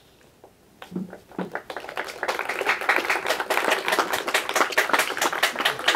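A small group of people clapping, starting about a second and a half in and growing quickly into steady applause.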